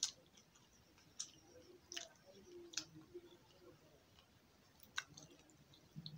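A person eating with their hands and chewing with an open mouth: sharp, wet lip smacks and mouth clicks, about six of them roughly a second apart, between quiet pauses.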